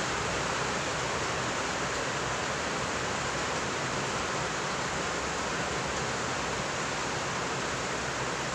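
Electric fan running, a steady even rushing hiss with no change.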